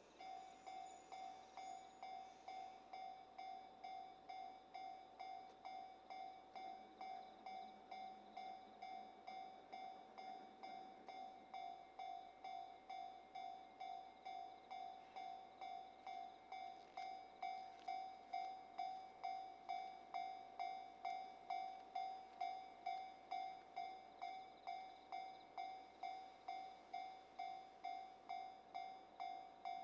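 Japanese railway level-crossing warning bell ringing: an even electronic ding at about one and a half strikes a second, starting suddenly and growing somewhat louder about halfway through. It signals that a train is approaching the crossing.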